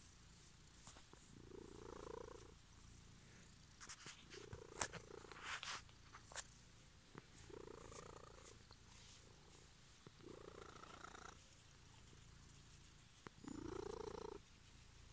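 Domestic cat purring while being stroked on the head, the purr swelling about every three seconds. A few sharp clicks are heard between about four and six seconds in.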